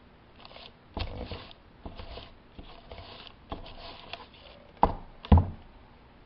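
Hot clothes iron being set down and pressed on a sheet of paper over a brush tip: a thump about a second in, short scuffing and rustling of the iron and paper, then two sharp knocks near the end.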